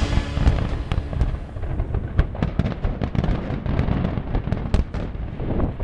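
Fireworks display: aerial shells bursting in a rapid, irregular series of bangs and crackles over a constant low rumble.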